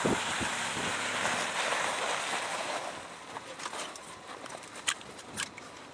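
Wind blowing across the microphone, a steady rushing that dies down after about three seconds, followed by a couple of sharp clicks.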